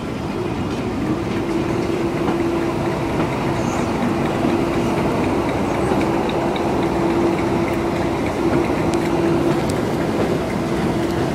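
Railway carriage running along the track, heard from on board at an open window: a steady rumble of wheels on rail, with a steady hum coming in about a second in.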